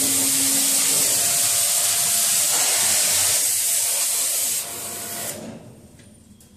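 Cutting torch on a CNC torch table hissing steadily as its gas jet cuts steel plate, then shutting off in two steps near the end.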